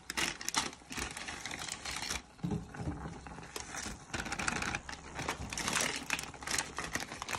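Plastic instant-noodle packets crinkling as they are handled and shaken over a pot: a dense run of irregular crackles and clicks.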